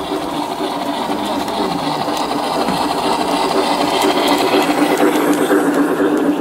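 G-scale garden-railway train, a model steam locomotive pulling passenger coaches, rolling past close by: a steady mechanical whir of motor, gears and wheels on the rails, with light clicks. It grows a little louder as the train nears, peaking about five seconds in.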